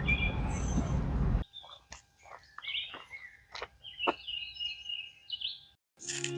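A low rumbling noise cuts off abruptly about a second and a half in. It gives way to birds chirping and calling, with a few short sharp clicks among them.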